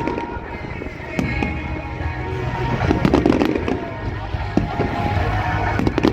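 Fireworks going off during a display set to music: several sharp bangs and crackles of bursting shells over a musical soundtrack played through loudspeakers.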